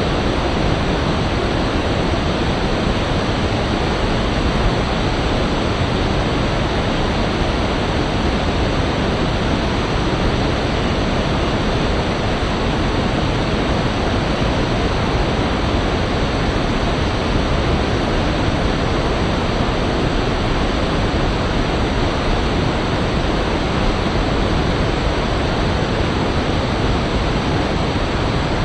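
Rushing river water, a loud steady roar of whitewater with no breaks.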